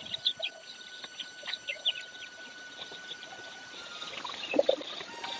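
Small birds chirping in many short, high calls, with a louder, lower-pitched sound about four and a half seconds in.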